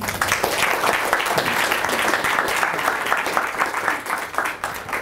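Audience applauding, many hands clapping together at once, thinning out near the end.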